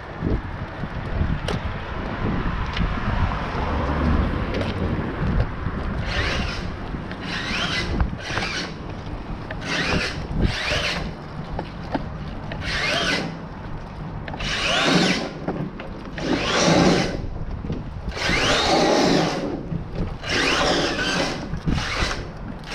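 The brushless motor of a Hyper SSE electric RC buggy on a 6S battery whines in repeated throttle bursts, about ten, each rising in pitch. Low rumbling tyre and road noise comes before and between them.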